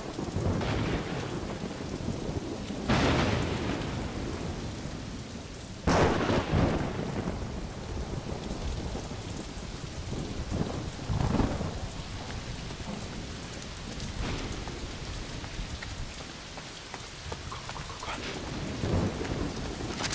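Heavy rain pouring steadily in a thunderstorm, with several claps of thunder. The loudest come about 3 and 6 seconds in.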